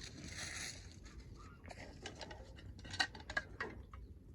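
Irregular sharp clicks and light taps from a small camp-cooking fire in a Kelly kettle's fire base, with a pan sitting over it; a soft hiss comes in the first second.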